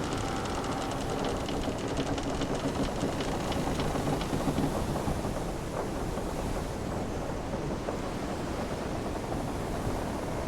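Wooden sailing ship's timbers creaking over a steady rush of sea and wind. In the first half the creaks come as runs of fine rapid clicks with short groaning tones.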